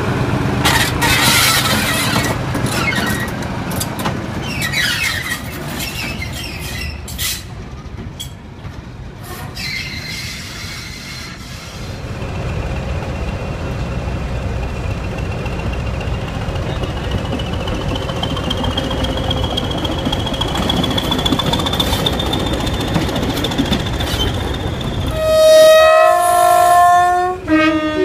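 Diesel locomotive engines running as an English Electric Class 20 approaches, with a thin high whistle that rises slowly in pitch and then holds. Near the end a locomotive horn sounds several loud blasts of two tones.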